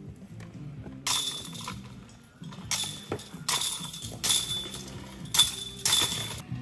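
About six loud bursts of metallic clinking and jingling, starting about a second in, each ringing out briefly, over quiet background music.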